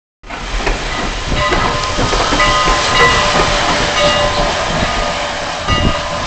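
Steam locomotive moving slowly close by, with a steady hiss of steam, rail clatter, and high squealing tones that come and go.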